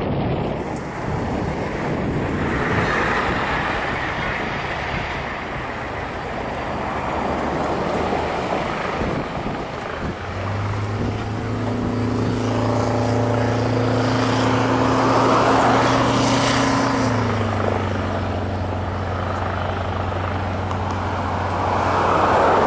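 Wind buffeting the microphone over a rough rumble. About halfway through, a large vehicle engine comes in with a steady hum, the airport fire truck's engine, and drops slightly in pitch a few seconds later.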